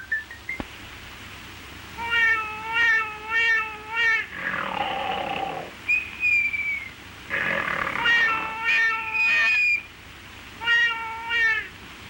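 A cartoon cat meowing over and over in short wavering cries, with hissing bursts between the groups of meows.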